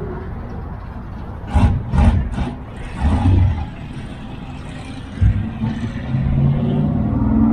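Car engines running as cars cruise past, with three quick loud rev blips about a second and a half in and two more shortly after. Near the end an engine accelerates, its pitch rising and its sound growing louder.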